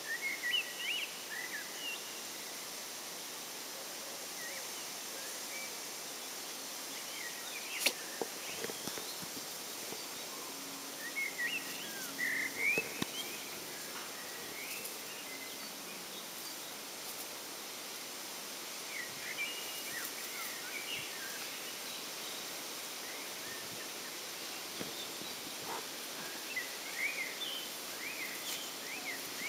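Outdoor garden ambience: a steady hiss with small birds chirping in short scattered bouts, and one sharp click about eight seconds in.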